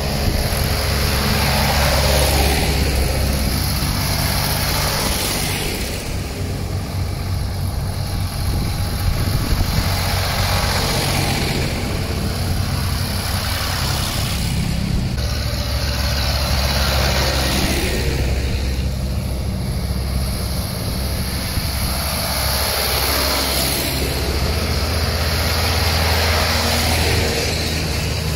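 Farm tractors' diesel engines running as a line of tractors drives past one after another, a close pass-by rising and fading about every four to five seconds over a constant low engine drone.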